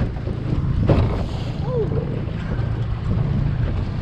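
Boat motor running steadily at trolling speed, a low drone, with wind buffeting the microphone. A single knock about a second in, then a short squeak that dips in pitch.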